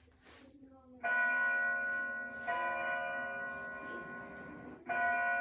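Church bells ringing: three strokes, about a second in, then roughly a second and a half and two and a half seconds later, each ringing on and slowly fading.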